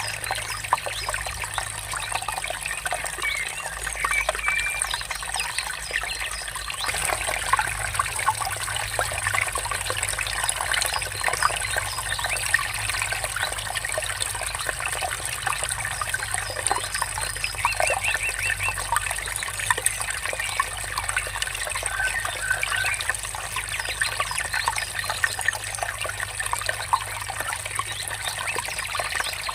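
Water trickling and babbling in a small stream, with a few short bird chirps now and then.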